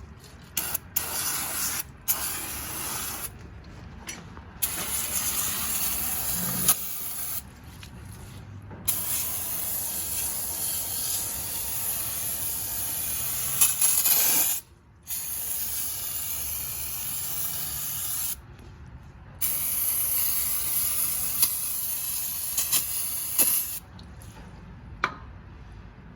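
Aerosol cleaner can spraying in long hissing bursts, about six of them separated by short pauses, onto oily lathe gearing.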